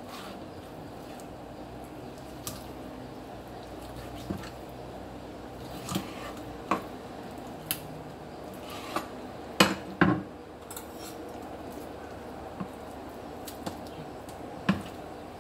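Kitchen knife clicking and scraping against a cutting board while cutting raw chicken breast off the bone: scattered irregular clicks, the loudest two close together a little past the middle, over a steady low hum. A sharper snip near the end as kitchen shears come into use.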